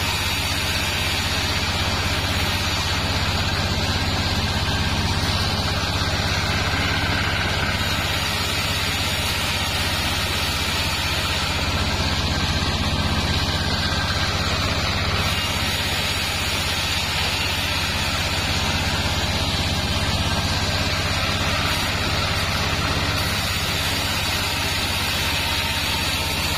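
Bandsaw mill running steadily while sengon wood boards are fed through its blade and ripped; a constant low machine hum under the even noise of the cut.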